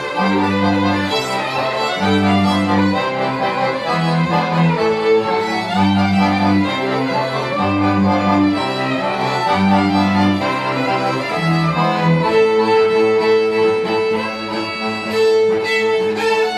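Live folk tune on three fiddles and an accordion: the fiddles carry the melody over the accordion's regular alternating bass-and-chord accompaniment. Near the end the bass pattern gives way to a held higher note.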